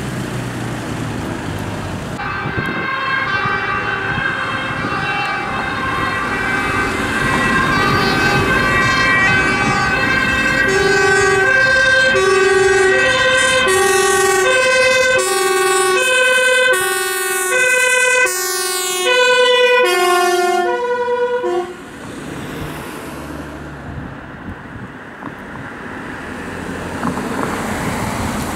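An emergency vehicle's two-tone siren alternating between two pitches about once a second. It comes in a couple of seconds in, grows louder as the vehicle approaches, and cuts off suddenly about two-thirds of the way through. Engine and road noise from passing traffic come before and after it.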